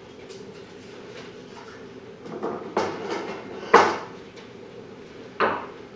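Bent aluminum sheet-metal sign pieces handled and set down on a metal tabletop. They scrape and rattle from about two seconds in, give a loud metallic clank with a short ring just before four seconds, and knock once more near the end.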